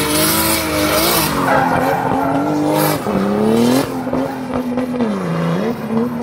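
Drift car's engine held at high revs, its pitch dropping briefly twice, while the rear tyres squeal and skid in a smoky drift.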